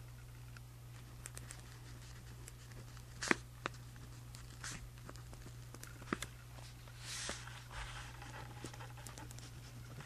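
Writing on journal paper: faint scratching strokes with a few sharp ticks, the sharpest about a third of the way in and again around six seconds, over a steady low hum.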